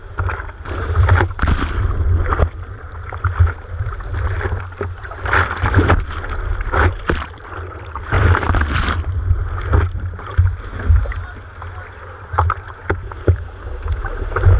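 Water splashing and sloshing against a camera mounted on the nose of a longboard surfboard as the surfer paddles through whitewater. Irregular sharp splashes come over a steady low rumble.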